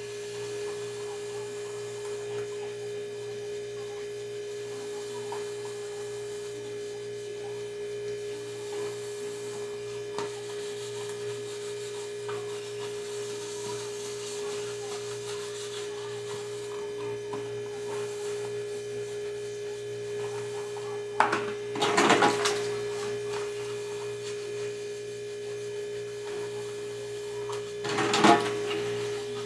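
A steady electrical hum with one constant tone throughout, under light rubbing of plastic bowls being handled at a kitchen sink; the plastic dishes clatter loudly twice, about two-thirds of the way through and again near the end.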